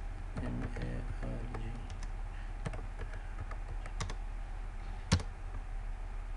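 Computer keyboard keys pressed while a login ID and password are typed: a few separate clicks, the loudest about five seconds in.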